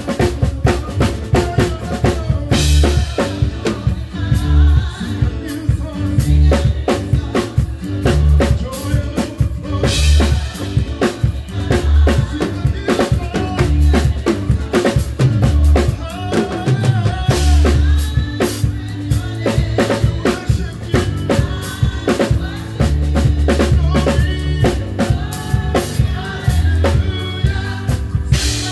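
Live band playing a song with the drum kit up front: a steady beat of kick and snare under heavy bass and other pitched instruments, with cymbal crashes about two seconds in, about ten seconds in, and near the end.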